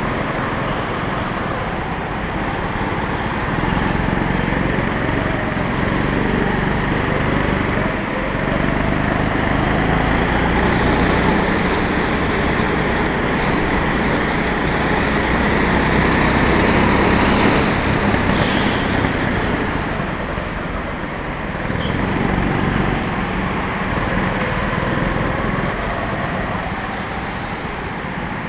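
Go-kart's small engine running at speed, recorded from on board, its note rising and falling as the kart accelerates out of corners and eases into them.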